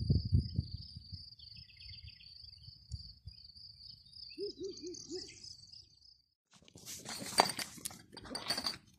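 Outdoor nature ambience: a steady, high-pitched trill with a few short, repeated animal calls about four and a half seconds in. The trill stops suddenly about six seconds in, and after a brief gap comes a run of rustling and knocking noises.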